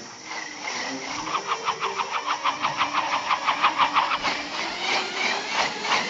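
Cartoon whooshing sound effect of a lit stick of dynamite whirled round and round on a cord: a rapid, even swishing rhythm of about six swishes a second.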